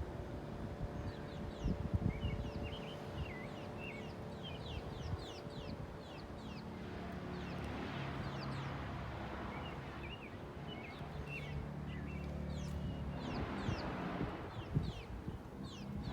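Sparrows chirping: many short, quick chirps repeating throughout, over a steady low hum.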